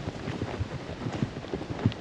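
Horse hoofbeats on a trail at a walk: an uneven run of low hoof strikes, several a second.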